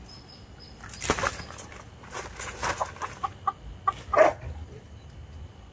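Hen calling in a series of short clucks and squawks, the loudest squawk a little after four seconds in. A brief noisy scuffle about a second in.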